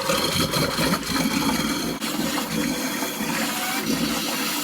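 A toilet flushing, with a steady rush of water draining away, as the toilet is emptied while the cabin's plumbing is drained for winter.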